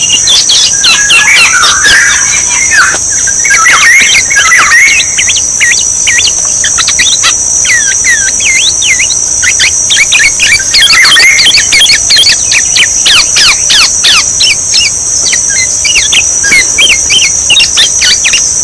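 Orioles calling: a dense run of short, quick downward-sweeping whistles and chatter, several a second, over a steady high-pitched buzz.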